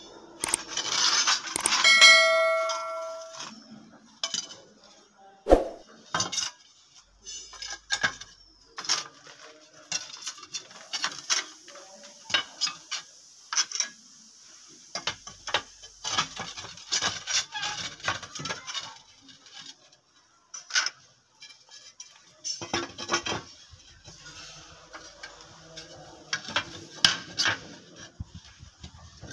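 Ceramic tiles clinking and scraping against each other and on wooden planks as they are handled and laid side by side, in many short knocks. A bell-like ding rings for about a second near the start.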